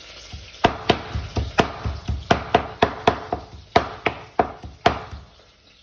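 Ginger being chopped with a large kitchen knife on a plastic cutting board: a quick, slightly uneven run of sharp knife strikes, about three to four a second, that stops about five seconds in.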